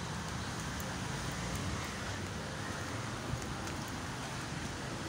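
Steady outdoor background noise: a low rumble under an even hiss, with nothing distinct standing out.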